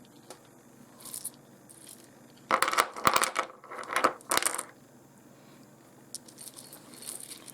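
Small pieces of rough seam opal clinking and knocking against one another as they are handled, a flurry of sharp clicks a few seconds in, with a few fainter clicks near the start and near the end.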